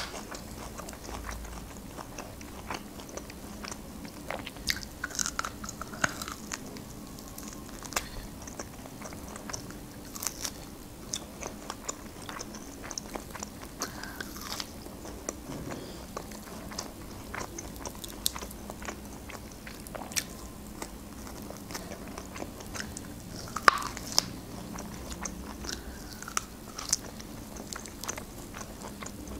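Close mouth sounds of someone biting and chewing grilled shashlik meat held on the bone, with many scattered sharp clicks and crunches.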